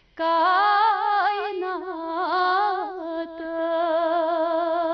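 A solo woman's voice singing a Kashmiri naat, drawing one syllable out in a wavering melismatic run, then holding a long steady note from about three seconds in.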